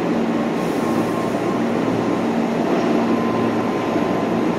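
Osaka Metro Sakaisuji Line subway train moving along the underground platform: steady running noise of wheels on rail, with faint humming tones from the train's motors.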